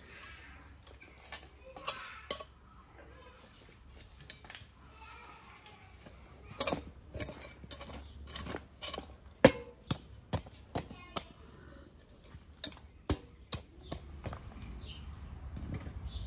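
A string of irregular sharp knocks and clicks, about a dozen, most of them in the middle of the stretch, with the loudest about halfway through.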